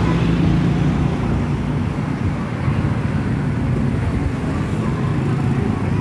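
Road traffic passing close by: a small truck and then a line of motorcycles and cars, their engines making a steady drone.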